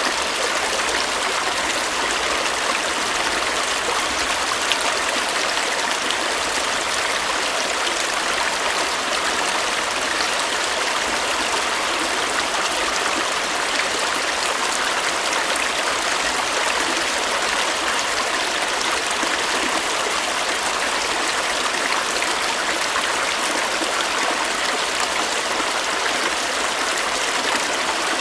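A stream of running water, babbling and trickling steadily and evenly.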